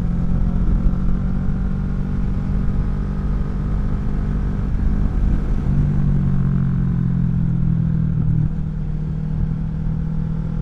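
Kawasaki Vulcan 650 S parallel-twin engine running steadily through an aftermarket CS Racing exhaust while riding at road speed. The engine note shifts for a couple of seconds, starting about six seconds in, then settles back.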